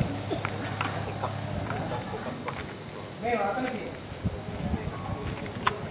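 Crickets chirring in a steady, unbroken high drone. A brief voice sounds about halfway through, and a few sharp clicks, the loudest near the end.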